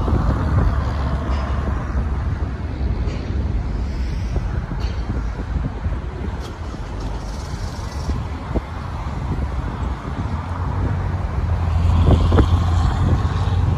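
Steady low rumble of jet airliners across an airfield, mixed with wind buffeting the microphone; it swells near the end.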